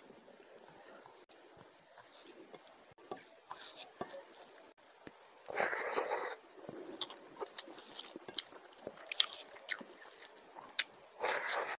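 Close-miked eating by hand: wet chewing and lip-smacking clicks as a man eats rice mixed with fish curry, with two louder noisy bursts about halfway through and near the end.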